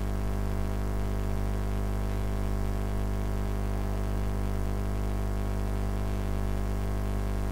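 Steady electrical mains hum on the recording: a constant low buzz with a stack of unchanging overtones.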